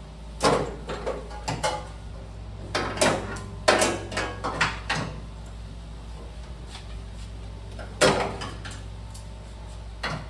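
Irregular metal clanks and knocks from handling tools and parts, in a few clusters with a loud single clank about eight seconds in, over a steady low hum.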